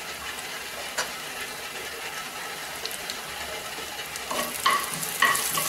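Hot oil sizzling in a nonstick kadai as urad dal, mustard seeds and dried red chillies fry for a tempering, with a single crack about a second in. From about four seconds in a spatula scrapes and stirs the pan, about two strokes a second.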